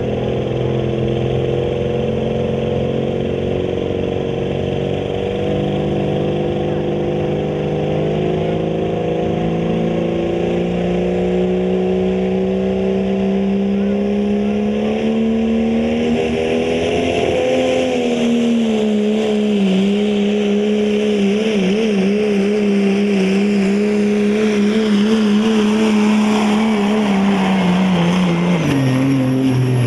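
Diesel pickup truck engine at full throttle pulling a weight-transfer sled. The engine note climbs slowly for about the first half, then holds with a wavering pitch as the load builds, and drops near the end as the throttle comes off.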